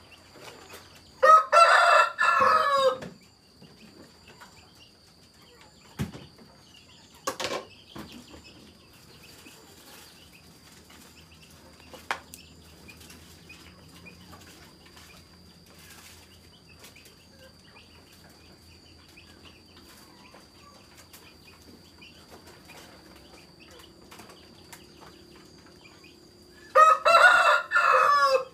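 A rooster crowing twice, once about a second in and again near the end, each crow lasting under two seconds. In between come a few short sharp sounds over a faint steady high tone.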